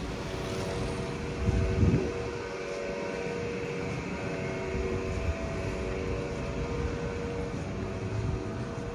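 Steady low mechanical rumble with a hum of several steady tones, swelling briefly louder about a second and a half in: vehicle or machinery noise.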